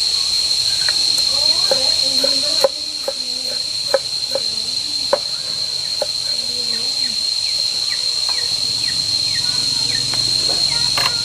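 Insects shrilling in one steady high-pitched tone, with a few sharp knocks in the first half.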